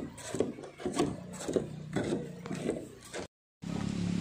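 Footsteps on a bamboo footbridge: the slats knock and creak under each step, about two steps a second. Near the end the sound breaks off and gives way to a steady low hum.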